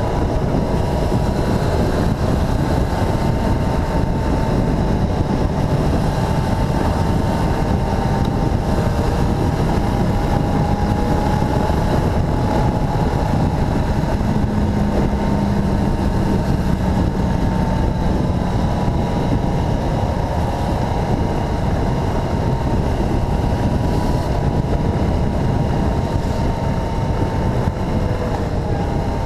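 Motorcycle engine running at a steady cruise, its note drifting slowly up and down, with wind rushing over the camera microphone.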